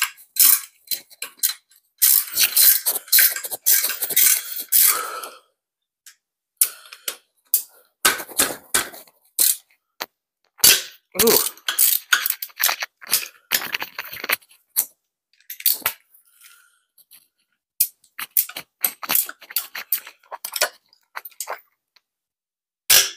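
Socket ratchet clicking in short irregular runs as rusted motor mount bolts are worked loose and spun out of an engine block, with clinks of the steel socket and wrench.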